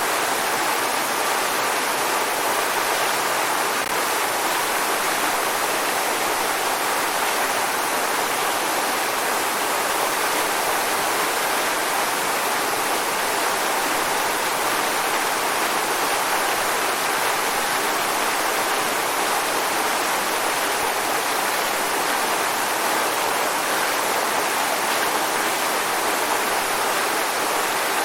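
Waterfall: water falling and splashing in a steady, unchanging rush, mostly hiss and spray with little deep rumble.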